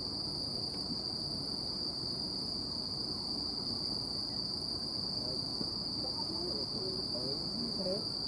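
Crickets singing in one steady, unbroken high-pitched chorus, over a low, even background hum.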